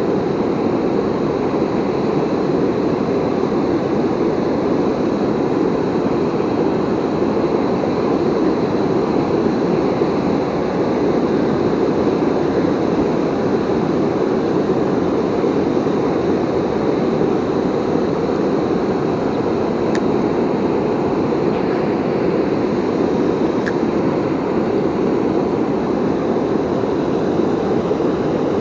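Steady, deep rushing of a river waterfall, an even wall of water noise that holds constant throughout.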